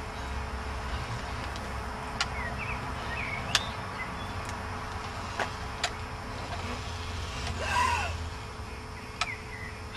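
Powered wheelchair's electric drive motors running steadily as it rolls along, with a few sharp clicks and a louder pitched burst about eight seconds in.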